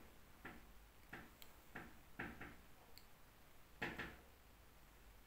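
Faint taps and scratches of a marker writing on a board: about six short, separate strokes, the loudest about four seconds in.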